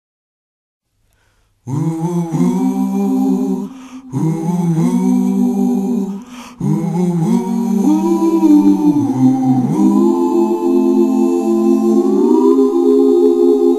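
Background music: wordless a cappella singing, voices holding and sliding between sustained chords. It starts after about a second and a half of silence.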